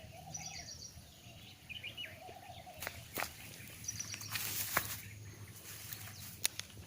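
Saw-scaled viper rasping its warning: a dry, sizzling hiss made by rubbing its serrated side scales together, heard once for under a second about four seconds in. Birds chirp around it, and there are a few sharp clicks.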